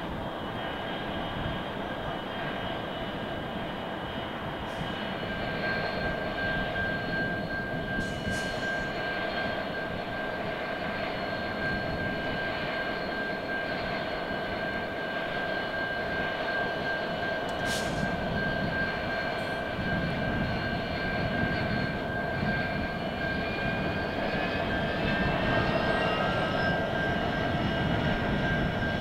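Two Aurizon GWB-class diesel-electric locomotives pulling away with a container train: a steady diesel drone with high whining tones. Several of the whines rise in pitch near the end as the train gathers speed.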